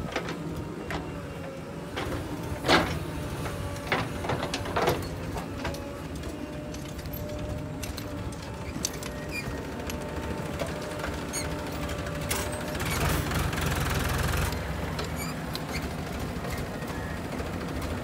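Diesel engines of a JCB 3DX backhoe loader and a tractor running steadily, with a few sharp knocks in the first five seconds. The engine noise grows louder for a couple of seconds about two-thirds of the way through.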